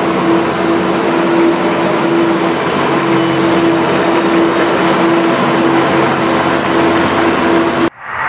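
Zamboni ice resurfacer running: a steady mechanical noise with a constant hum. It cuts off suddenly near the end.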